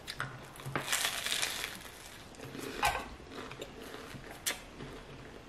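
A bite of toasted garlic bread being chewed with crunching, loudest about a second in, followed by a few sharp clicks.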